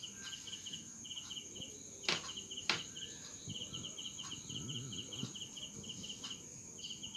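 Crickets chirping in quick repeated trains of short pulses, over a steady high whine. Two sharp clicks come about two and almost three seconds in.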